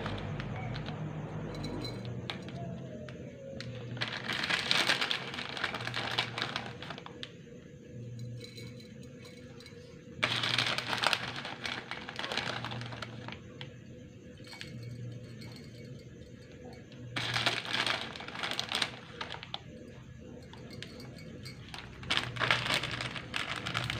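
A flexible plastic pouch rustling and crinkling in several short bursts as a hand rummages inside it.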